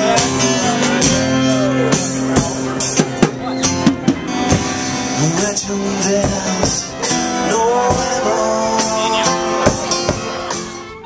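Live band playing a rock song with singing, dying down near the end.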